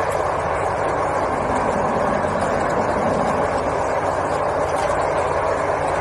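Dazzini QST3000D chain saw, driven hydraulically by a Caterpillar 432F2 backhoe loader's diesel engine, cutting steadily into a marble block: a continuous, unchanging mix of engine drone and the saw's cutting noise.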